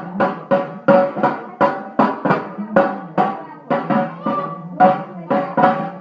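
A baby banging out an uneven beat on a resonant object, about two or three hits a second, each hit ringing briefly at the same pitch.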